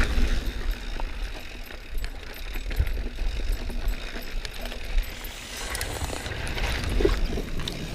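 Mountain bike riding on a dirt singletrack: a steady low rumble of wind and ride noise on the microphone, with tyres rolling over the trail and scattered knocks and rattles from the bike.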